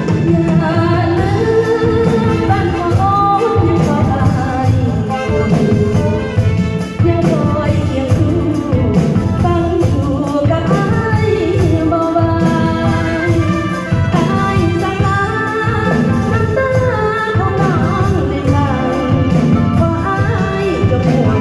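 A singer's voice carrying a melody over amplified band accompaniment with a steady drum beat, during a sound check.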